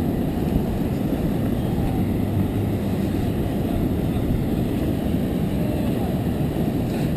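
Steady low rumble of wind on the microphone while moving across the beach, with a vehicle engine droning underneath.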